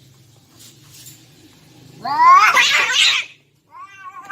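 Cats fighting. After two quiet seconds comes a loud, harsh screech with a hissing edge lasting about a second. Near the end a long, wavering yowl begins.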